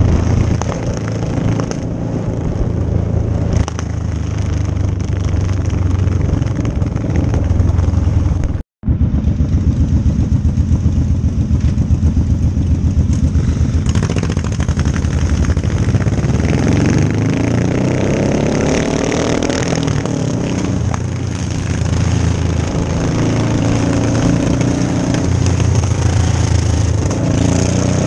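Sport motorcycle engines running under way as a group rides together, with the pitch rising and falling through acceleration and gear changes in the second half. The sound cuts out completely for a moment about nine seconds in.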